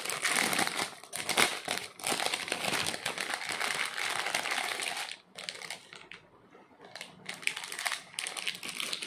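Plastic packets and wrapping crinkling as they are handled and pulled open, continuous and busy for about five seconds, then a short lull and more crinkling near the end.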